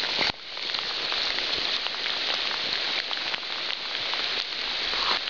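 Steady rain falling: an even hiss with scattered ticks of drops, with a brief dip about a third of a second in.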